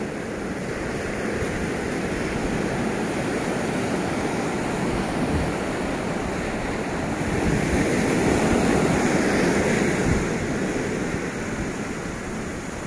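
Ocean surf breaking and washing up a sandy beach, a steady rush that swells louder about halfway through and then eases off.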